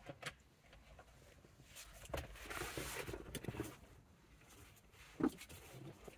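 Hands working the steering-column clock spring unit's plastic electrical connector and its locking tab: soft rustling and scattered small plastic clicks, with one sharper click a little after five seconds in.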